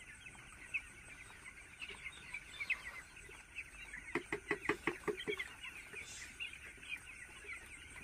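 A flock of ten-day-old broiler chicks peeping and chirping continuously. About four seconds in comes a quick run of about eight louder, sharper sounds.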